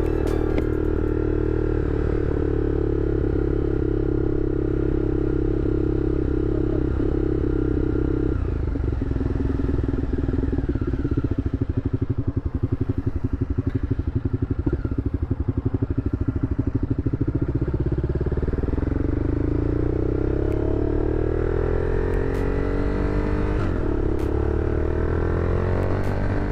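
Honda Superhawk VTR1000F's 996 cc V-twin running on the road. It holds a steady note, then drops in revs about a third of the way in and runs low and pulsing for several seconds. Around two-thirds of the way in it rolls on with rising pitch and settles on a higher steady note.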